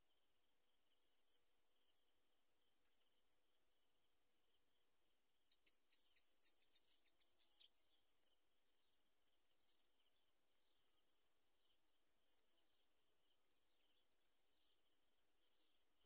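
Faint outdoor ambience: a steady high insect drone, with short clusters of high bird chirps a handful of times.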